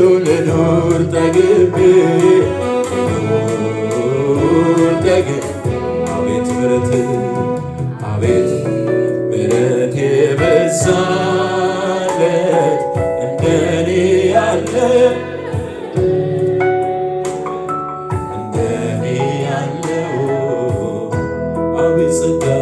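A man sings an Amharic gospel worship song into a microphone over steady musical accompaniment, holding long notes that bend in pitch.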